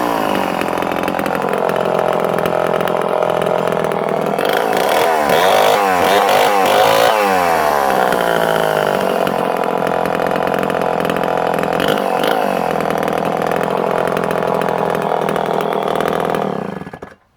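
Homelite C51 77 cc two-stroke chainsaw engine running. Its revs swing up and down several times between about 4 and 8 seconds as the throttle is worked, then it runs steadily before being shut off near the end.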